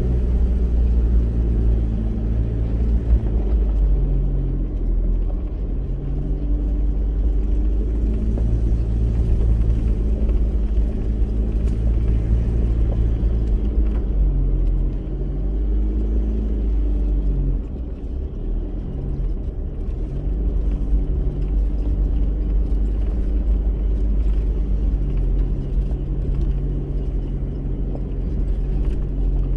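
A 4x4 driving along a bush track: a steady low rumble of engine and tyres, with a hum whose pitch shifts every second or two.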